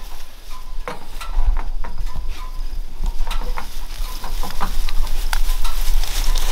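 Tall grass rustling and swishing as someone pushes through it on foot, with many short scattered crackles, over a steady low rumble on the microphone.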